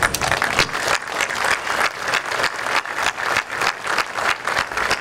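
Crowd of many people applauding, dense and steady hand-clapping.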